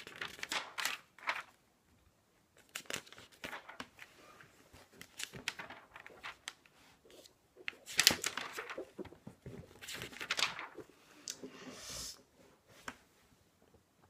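Packaging being handled, with a run of irregular rustles and crackles, loudest about eight seconds in.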